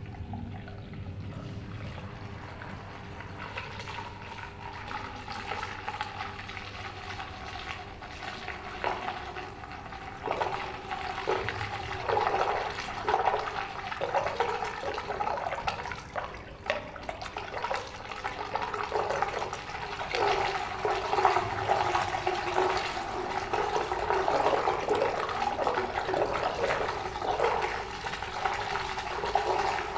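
Water swirling and gurgling down into a whirlpool drain in a dark pool, a steady rush that grows louder and starts to surge unevenly about a third of the way in.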